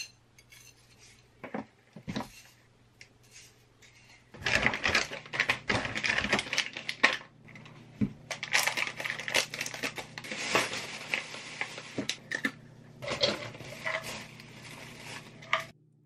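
Rolled oats and nuts being scooped, poured and handled in a ceramic bowl, with plastic packaging crinkling: a few separate clicks, then from about four seconds in a dense run of small clicks and rustles that stops just before the end.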